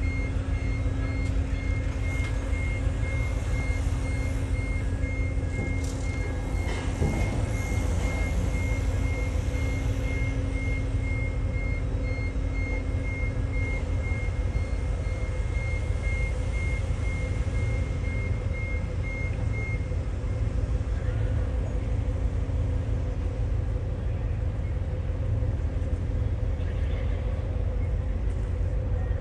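A vehicle's reversing alarm beeping steadily at a high pitch over a loud, steady low rumble and hum; the beeping stops about twenty seconds in while the rumble carries on.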